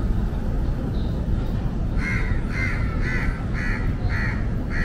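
A crow calling: a run of six harsh caws about half a second apart, starting about two seconds in, over a steady low rumble.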